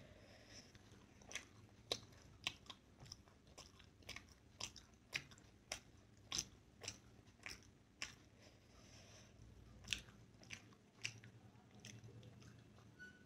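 A person chewing soft steamed momos with the mouth closed: faint wet mouth clicks and smacks, about one and a half a second.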